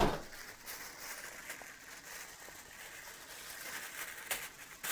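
Faint kitchen handling noises: a few light clicks and knocks over a low background hiss while a bell pepper is fetched for preparation.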